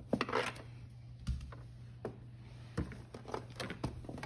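Plastic toy camper and dolls being handled: irregular light clicks and knocks of hard plastic pieces, with a quick cluster of them near the start.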